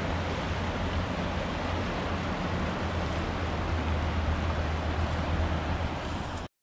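River water rushing steadily over rocky rapids and riffles, an even hiss with a low rumble under it. It cuts off abruptly just before the end.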